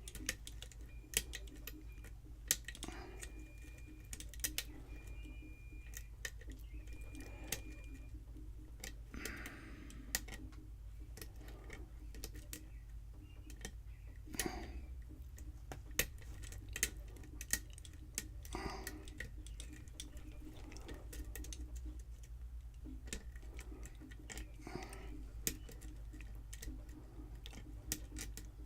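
Faint, irregular clicks and light scraping of a lock pick and tension wrench working the pins of a Schlage pin-tumbler lock while single-pin picking it, over a steady low hum.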